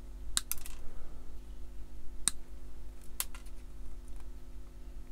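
Sprue cutters snipping small plastic pieces off a model kit part, giving sharp clicks: a quick pair about half a second in, then single snips about two and three seconds in, over a faint steady hum.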